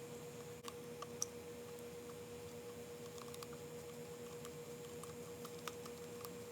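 Faint, irregular light clicks and ticks of a paintbrush stirring fibreglass resin and hardener in a small cup, over a steady electrical hum.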